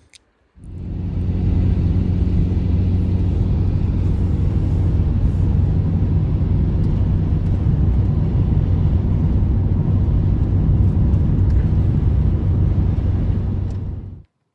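A loud, steady, engine-like drone with a constant low hum. It starts abruptly about half a second in and cuts off abruptly just before the end.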